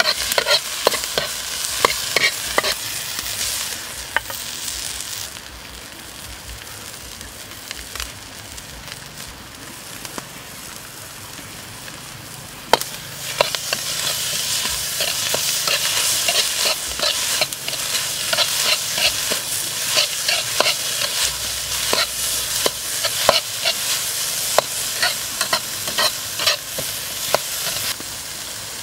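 Metal spatula scraping and knocking against a steel wok as chopped vegetables are stir-fried, over a steady sizzle. The stirring stops for several seconds about five seconds in, leaving only the sizzle, then starts again and runs on.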